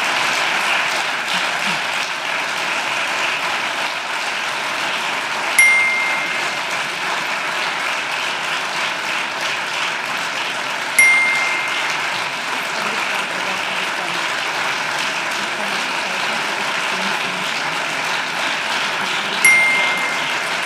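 Sustained applause from a parliament chamber, many people clapping steadily. Three clear single dings cut through it, several seconds apart.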